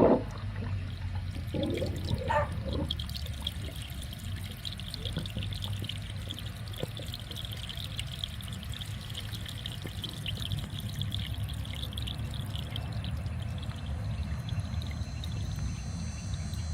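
Vinegar-and-water flush trickling through an air conditioner's condensate drain line, a steady run of water flushing out the algae build-up.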